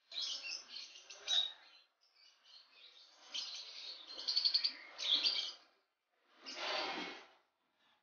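Caged lovebirds chirping and chattering in rapid high-pitched, clicky calls, with a short, harsher noisy burst near the end.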